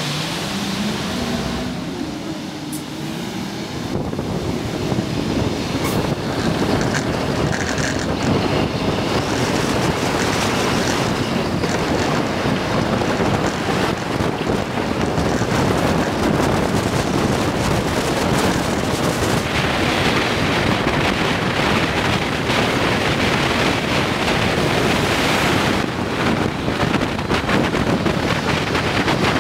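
Vehicle engine rising in pitch as it pulls away, then a steady rush of tyre and wind noise at freeway speed.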